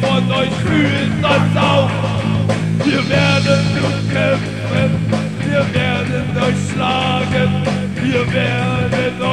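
Oi! punk song from a 1995 band demo tape: distorted electric guitars, bass and drums playing without a break.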